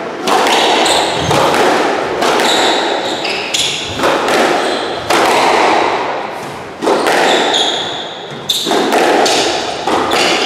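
Squash rally: the ball cracks off rackets and the walls every second or two, each hit ringing on in the echoing court. Short high squeaks come from shoes on the wooden floor.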